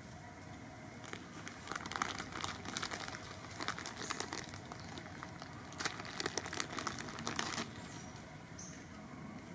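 Dry leaf litter and twigs rustling and crackling underfoot, in irregular bursts of crackles that die away near the end.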